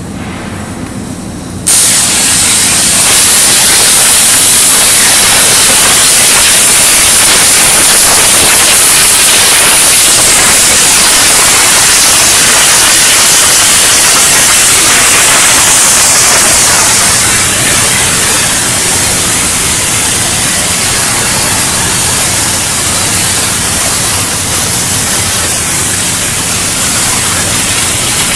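Flame-cutting torches on a CNC profile-cutting machine cutting steel plate: a loud, steady rushing hiss that starts suddenly about two seconds in, with a faint low hum beneath it.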